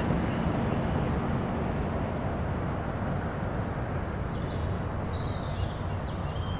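Steady low outdoor background rumble, with a few faint high chirps about four to six seconds in.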